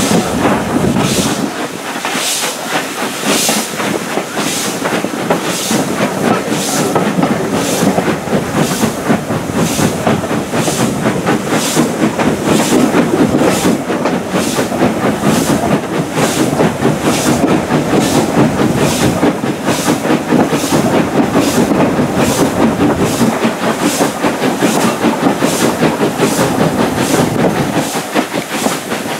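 Steam locomotive working a train at speed, heard from a carriage window: a regular beat of exhaust chuffs, about one and a half to two a second and quickening slightly, over the steady rumble and clatter of the coach wheels on the rails.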